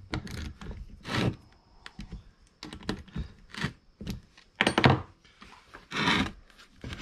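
Irregular short bursts of metallic clicking and knocking, about six in all, from a ratcheting wrench turning bolts on a twin air compressor and from its metal parts being handled.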